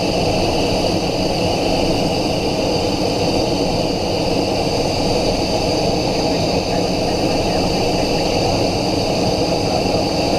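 Cessna Citation XLS cockpit noise in flight after takeoff: a steady rush of air and engine rumble with a high, even whine from its twin turbofan engines.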